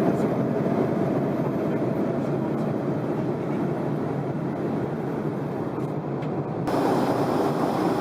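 Steady rumbling ride noise of a subway train running. About seven seconds in, it cuts abruptly to a different, brighter rushing noise.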